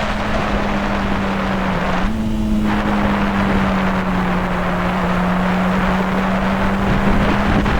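2012 Honda CBR600RR inline-four with aftermarket slip-on mufflers running at a steady engine speed under way, with a brief dip in pitch about two seconds in. Wind buffets the microphone.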